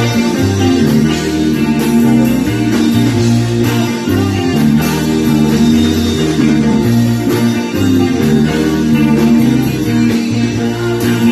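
A rock band playing live, with electric guitars and bass guitar sounding sustained chords and bass notes, and no singing.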